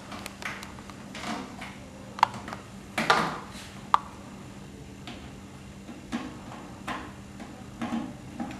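Cables and plugs being handled and connectors pushed into AV equipment sockets: a series of small clicks and rustles, the sharpest about two, three and four seconds in, over a faint steady hum.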